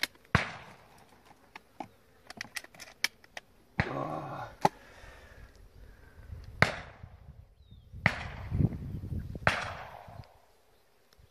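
Shotgun shots at doves: a loud report just after the start, then three more spaced about a second and a half apart near the end, each with a ringing tail. Fainter shots from other guns crackle throughout.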